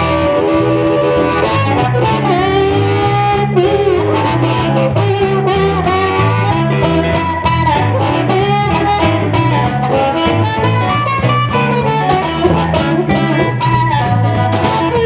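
Blues band playing an instrumental intro: a lead guitar with bending notes over a stepping bass line and drums keeping a steady beat.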